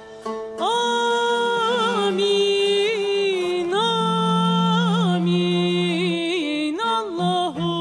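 A woman sings long held notes with wavering ornamental turns in a slow Turkish song, accompanied by a cello's sustained low line and a tanbur.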